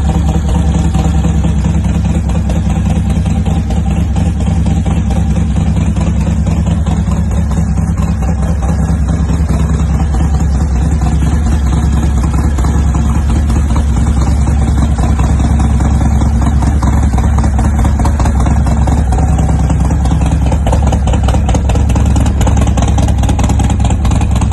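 Harley-Davidson Softail Breakout's Milwaukee-Eight V-twin engine idling steadily through its exhaust.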